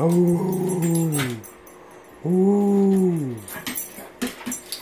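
Chocolate Labrador giving two long, low howl-like calls, each about a second and a half, holding pitch and then dropping away at the end. She is "talking" to beg for her dinner.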